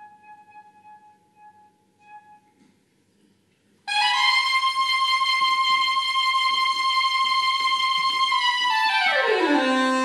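Solo soprano saxophone: a few soft, broken notes on one pitch, a short pause, then a loud high note held for about four seconds that glides smoothly down to a low held note near the end.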